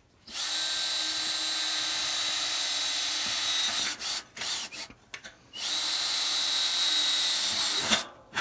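Power drill running at a steady high speed in two long runs, with a few short trigger blips between them.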